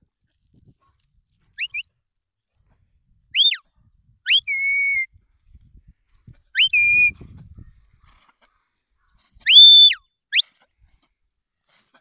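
A shepherd's whistled commands to a working sheepdog: about six short, sharp whistles, some rising and cut off, some rising then held level. The longest and loudest rises, holds and falls about ten seconds in.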